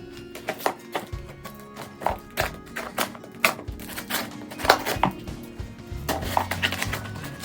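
Background music with steady held tones, and short sharp taps and knocks throughout.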